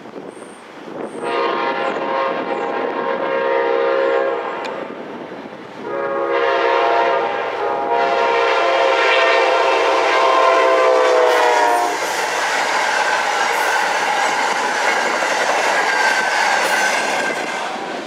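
Train horn sounding two long blasts for the grade crossing, the second dropping in pitch as the locomotive passes. Then the train rolls through the crossing with a steady rumble and clatter of wheels on rail.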